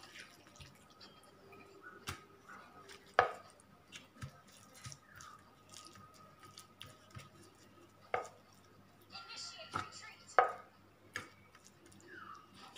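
Plastic spatula scooping minced pork filling and tapping and scraping it onto a wrapper on a ceramic plate: scattered soft taps, with three louder knocks.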